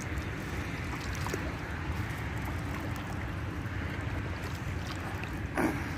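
Feet in flip-flops wading slowly through shallow water, a steady sloshing with low wind noise on the microphone. There is a slightly louder swish near the end.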